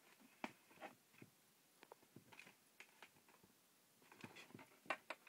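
Faint, scattered taps and scratches from a cat pawing around the edge of a wooden chest of drawers, with a quicker run of sharper taps near the end.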